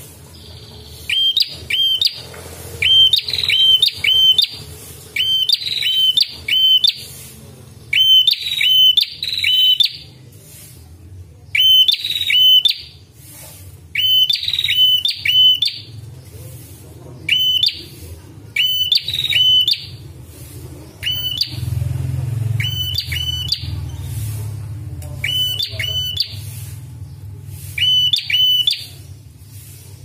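Caged tailorbird calling: loud, sharp, clipped notes in quick pairs and triplets, repeated every second or two, over a steady low hum.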